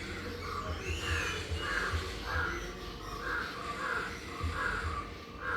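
A crow cawing over and over, a run of about nine short caws, a little under two a second.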